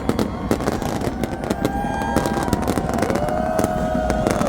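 Fireworks show popping and crackling in rapid, irregular bursts over the noise of a large festival crowd, with several long whistling tones held over it.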